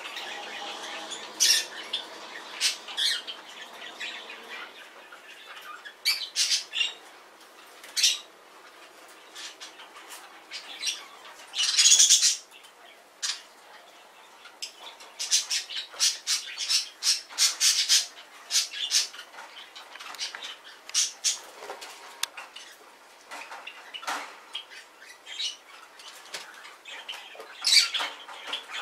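Pet parrots, a white cockatiel and a small blue parrot preening each other, giving many short, high chirps and squawks, with the loudest call about twelve seconds in.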